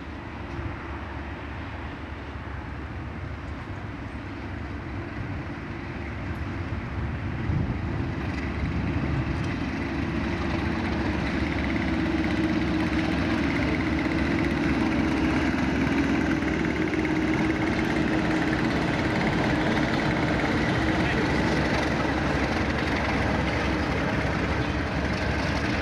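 Class 37 diesel-electric locomotive with its English Electric V12 engine running as it hauls a loaded coal hopper train past. The sound grows louder over the first dozen seconds, then holds steady with a low hum and a fainter high tone.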